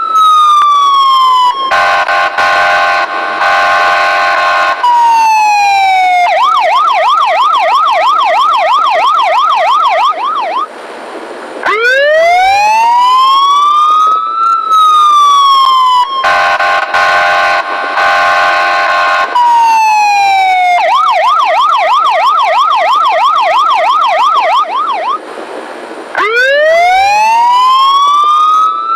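Electronic police siren cycling through its tones: a falling wail, a steady horn tone for about three seconds, a fast yelp warbling about three times a second, then a slow wail rising and falling. The sequence runs through twice.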